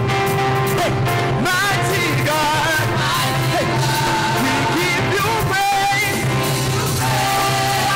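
Live church praise music: a group of singers on microphones singing over a band with a drum kit, with a steady bass line and a drum beat underneath.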